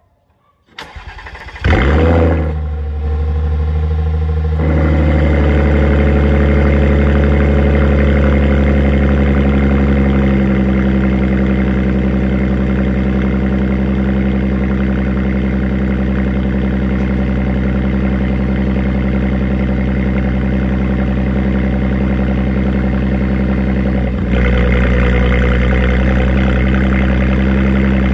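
Audi S4's V6 cold-starting through an ARMYTRIX aftermarket exhaust: a short crank, then it catches with a loud rev flare and settles into a steady fast cold idle. The idle eases down a little about ten seconds in. Near the end a brief knock comes, and the exhaust note gets slightly louder and brighter.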